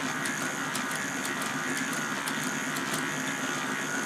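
Small electric motor driving a K'nex mechanism of plastic gears and chain, running steadily. Plastic parts click irregularly, several times a second, as the pin tape switches the transmission back and forth.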